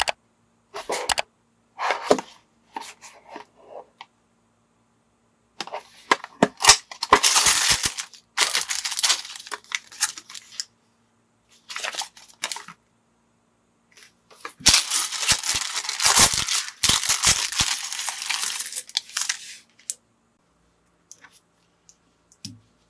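Unboxing a toy building set by hand: taps and clicks on a small cardboard box, then long stretches of loud rustling and crinkling as the packaging and a paper instruction sheet are handled, and a few faint clicks of plastic minifigure parts near the end.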